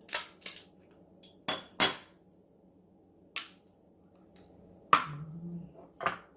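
Eating sounds at the table: about six sharp clicks and cracks as a large cooked crab's shell is broken and handled, with a short hummed "mm" about five seconds in.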